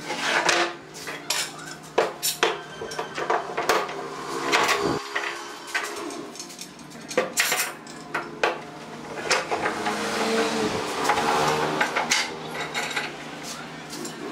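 Pipe clamps being set across a panel of wooden boards: irregular metallic clinks and clacks as the clamp jaws slide on and tighten against the steel pipes, mixed with knocks of the boards on the bench.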